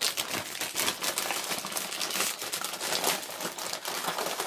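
A plastic Rancheritos tortilla-chip bag crinkling continuously as it is handled and pulled open at the top.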